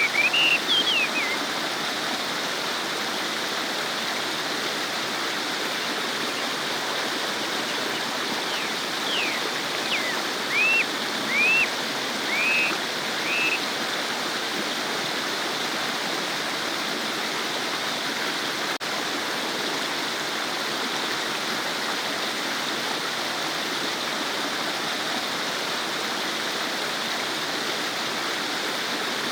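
A stream babbling steadily over rocks. A few short, high chirps cut through it right at the start and again a handful of times around the middle.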